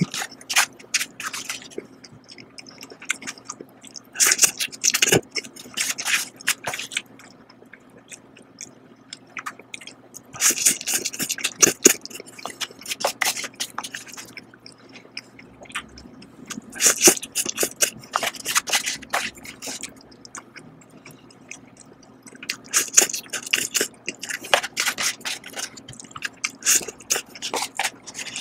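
Close-miked eating of Doll satay beef instant bowl noodles: about five bouts of wet slurping and chewing, one every five or six seconds, with quieter chewing in between.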